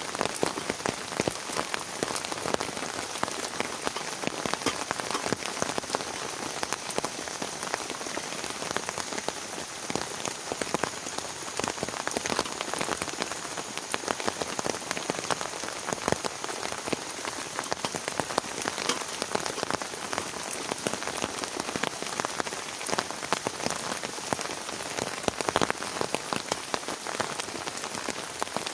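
Heavy rain falling steadily, with a dense, irregular patter of drops striking a surface close by.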